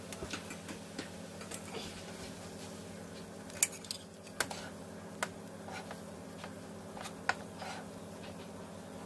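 Scattered sharp clicks and ticks over a steady low hum, a few of them louder, at about four irregular points in the middle of the stretch.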